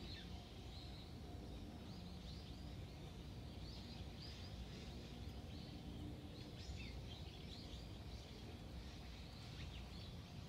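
Birds chirping in many short, quick notes over a faint, steady low rumble.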